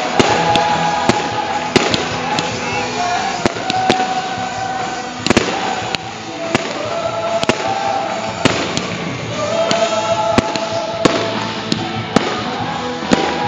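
Aerial fireworks shells bursting in quick, irregular succession, sharp bangs about one to two a second with one especially loud bang about five seconds in. Music with long held notes plays underneath.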